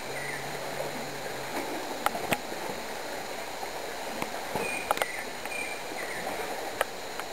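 Rainforest ambience: a steady rushing hiss with short high chirping calls, and a few sharp snaps or clicks as hikers scramble up a steep, overgrown slope.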